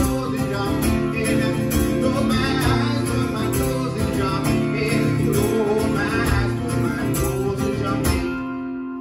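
Acoustic guitar strummed with kick drum beats under it, the song ending about eight seconds in on a final chord that rings out and fades.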